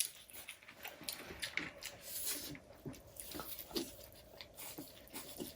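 People eating chow mein close to the microphone: chewing and mouth noises, with scattered short clicks and smacks.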